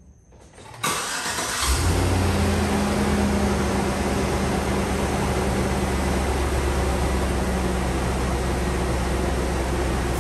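A 2004 Chevy Avalanche's 5.3-litre V8 starts about a second in and settles into a steady idle. This is its first run after a water pump and thermostat replacement and coolant refill.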